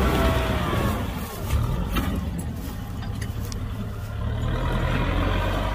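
Kubota M6040 SU tractor's diesel engine running steadily; the sound dips about a second in and builds back up after about four seconds.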